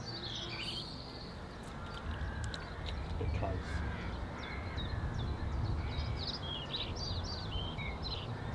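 Wild birds calling and singing, short high chirping phrases scattered throughout, over a low steady rumble.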